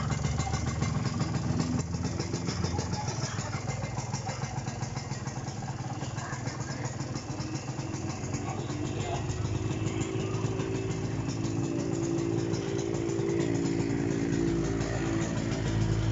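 Kawasaki AR125R's single-cylinder two-stroke engine running steadily, its note growing stronger over the last few seconds.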